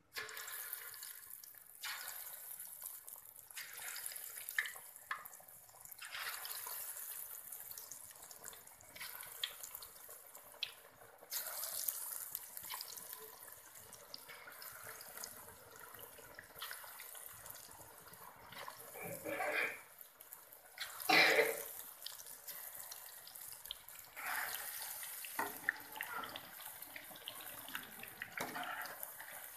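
Marinated, gram-flour-coated meat pieces deep-frying in hot oil in a karahi: a steady sizzle that starts suddenly as the first pieces go into the oil, with crackling throughout and a few louder bursts of spluttering about two-thirds of the way through.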